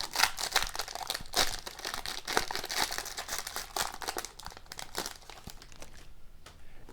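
Wrapper of a 2020-21 Upper Deck Synergy hockey card pack crinkling as it is torn open and handled, a dense run of crackles that dies away about six seconds in.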